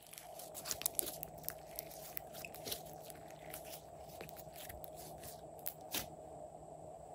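Hands squishing, stretching and folding glossy slime: a run of quick sticky clicks and crackles as it pulls apart and presses together, over a faint steady hum.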